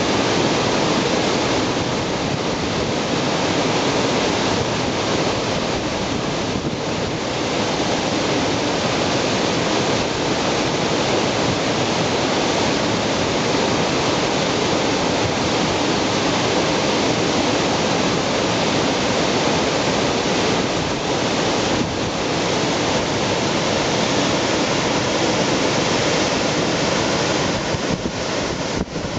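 Water pouring over a low concrete weir and churning into whitewater below: a steady rush.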